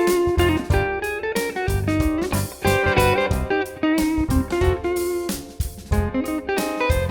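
Background music: an instrumental track led by guitar with a steady beat.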